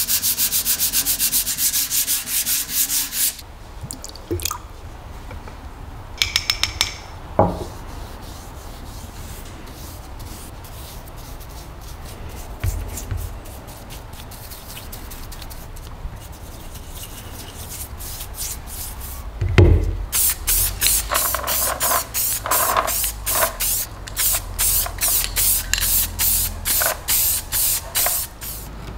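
Steel stapler part clamped in a vise being hand-sanded with an abrasive pad, quick back-and-forth rasping strokes for the first few seconds. Then quieter handling and a single knock, followed by a run of short rhythmic scraping bursts, about two a second.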